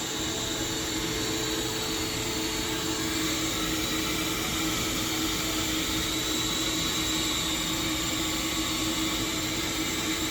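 Key-duplicating machine running with a steady motor whir and hum that holds a few fixed tones, while it works on a key copy.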